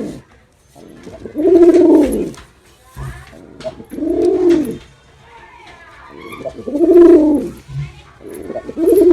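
Male domestic pigeon cooing: a low, arched coo that rises and falls in pitch, repeated about every two and a half seconds. There are three full coos, and a fourth begins near the end.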